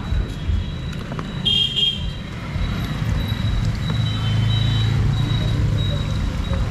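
Street traffic noise: a steady low engine rumble that grows louder and more even after about three and a half seconds, with a short high toot like a vehicle horn about a second and a half in.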